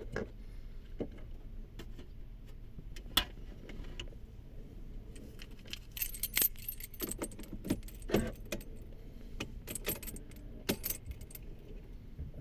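Keys jangling, with scattered sharp clicks, heaviest in the middle and latter part.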